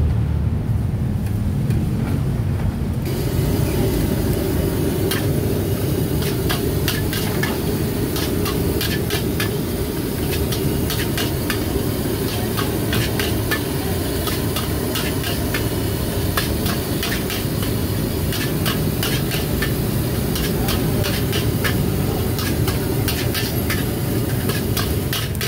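Fried rice being stir-fried in a wok over a steady low-rumbling gas burner. From about three seconds in, the food sizzles and a metal spatula clanks and scrapes against the wok in quick, irregular strokes.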